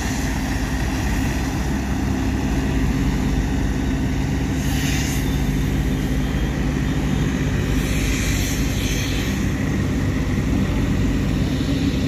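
Heavy truck diesel engine, the bitumen sprayer's, running steadily with a low, even hum. Brief hissing swells come about five seconds in and again around eight to nine seconds.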